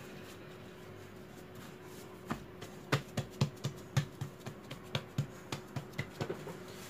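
Hands patting and pressing risen yeast dough flat on a floured stone countertop to knock the air out of it. Quiet for the first two seconds, then a run of quick slaps, about two or three a second, that stops shortly before the end.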